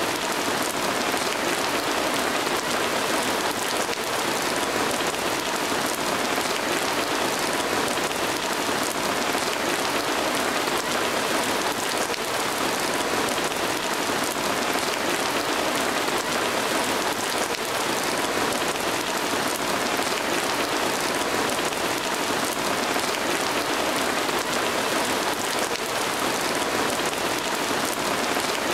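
A steady, even hiss like heavy rain, unchanging throughout.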